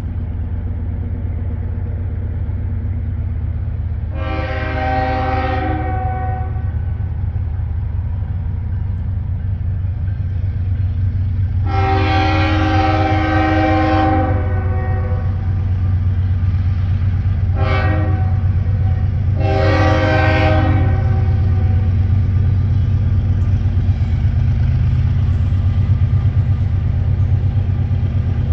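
CSX ES44AH diesel locomotive approaching with a low, steadily growing rumble while its Nathan K5HL five-chime air horn sounds long, long, short, long: the standard grade-crossing signal.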